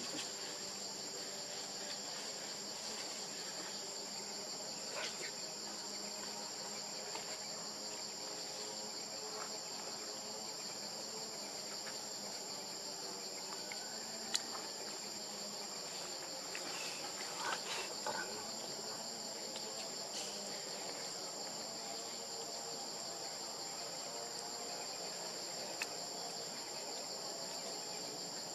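Steady, unbroken high-pitched drone of an insect chorus, with a sharp faint click about halfway through.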